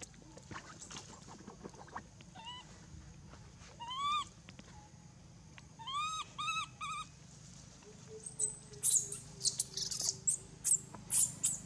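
Baby long-tailed macaque calling: a few short, arched, pitched coos, three in quick succession about six seconds in, then near the end a string of sharp, high-pitched screams. The screams are distress calls as an adult macaque grabs it.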